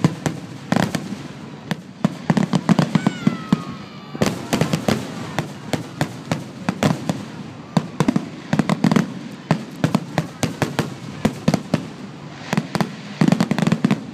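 Aerial fireworks display: shells bursting in quick succession, several bangs a second, with a brief lull about four seconds in.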